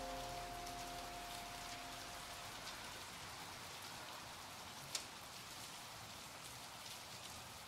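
Faint steady rain with scattered drop ticks and one sharper tick about five seconds in; a held musical chord fades out over the first two or three seconds.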